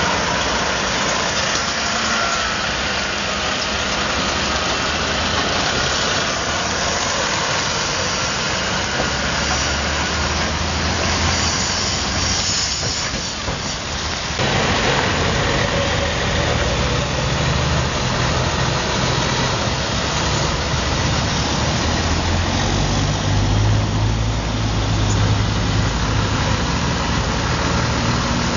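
Heavy trucks' diesel engines running as the trucks drive past one after another, with tyres hissing on a wet road. The low engine drone grows stronger from about halfway through.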